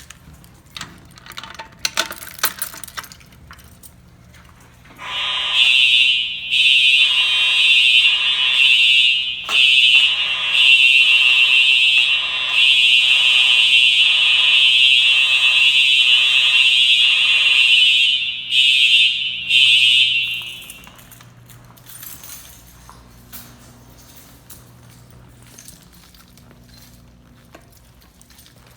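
Fire alarm horn sounding during a fire alarm system test, loud and mostly steady. It starts about five seconds in, breaks up briefly near the end and cuts off after roughly fifteen seconds, with faint clicks and handling noise before and after.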